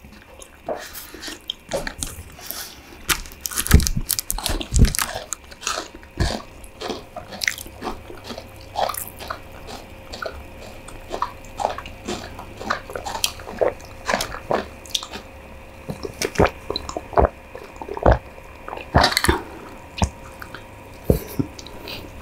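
Close-up chewing of stir-fried instant noodles, with irregular wet mouth clicks and smacks.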